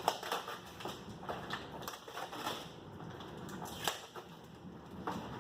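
A small taped-up cardboard box being handled and opened: scattered clicks, scrapes and crinkles of tape and cardboard.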